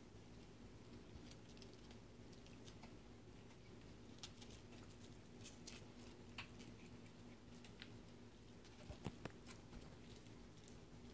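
Faint scattered clicks and taps of a cat's claws and paws on an electric stovetop as she paws at tape stuck on her face, with a quick cluster of sharper taps about nine seconds in, over a faint steady low hum.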